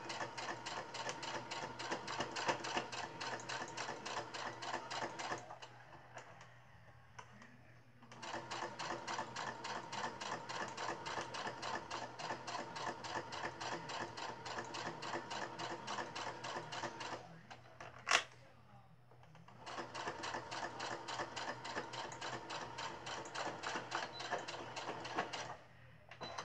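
Electric sewing machine stitching at a fast, even pace in three runs of several seconds each, with short pauses between them. There is a single sharp click in the second pause.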